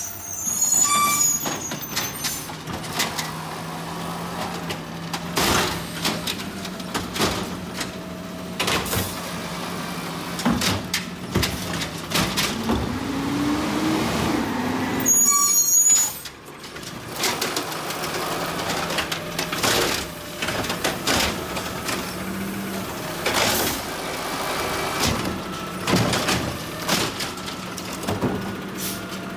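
Automated side-loader garbage truck running, with two sharp air-brake hisses, one at the start and one about halfway. Its engine rises in pitch twice, and knocks and clanks sound throughout.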